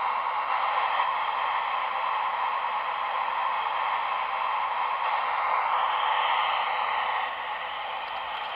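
Radio-controlled model machine running with a steady hissing whir from its electric motor and gearing. The sound shifts higher about two-thirds of the way in, then drops in level near the end.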